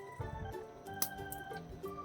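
Background music: a keyboard melody in steady, stepping organ-like notes over a low beat, with one sharp click about halfway through.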